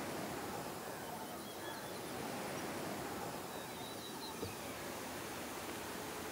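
Outdoor lakeside ambience: a steady hiss-like background noise with a few faint bird chirps and a small click about four and a half seconds in.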